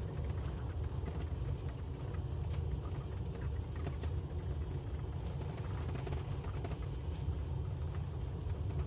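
Steady low engine and road rumble inside the cab of a motorhome driving slowly down a winding road, with a few faint ticks and rattles.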